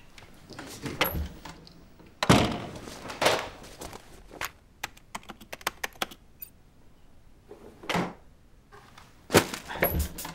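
Scattered thuds and clattering from a small room, with a run of quick clicks in the middle, then a door being opened near the end.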